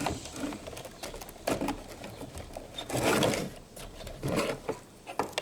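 A few sharp clicks and rattles, roughly one every second or so, with a longer clatter about three seconds in, as parts of a fuel pump assembly are handled and snapped into place.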